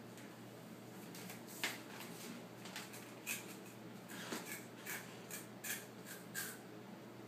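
A baby chewing a crunchy snack: a string of faint short crunches and mouth clicks, about a dozen over several seconds.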